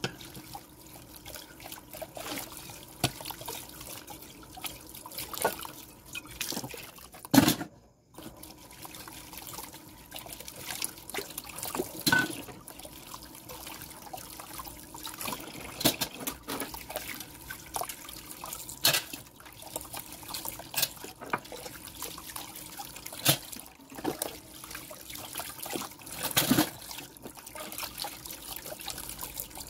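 Dishes being washed by hand under a running tap: water trickling and splashing, with frequent clinks and knocks of metal pots, pans and utensils. The loudest knock comes about seven seconds in.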